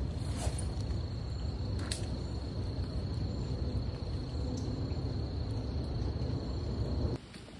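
Riverside ambience: a steady low rush of wind and moving river water, with an insect holding one steady high buzzing note over it. Two faint clicks about half a second and two seconds in, and the whole bed cuts off abruptly just after seven seconds.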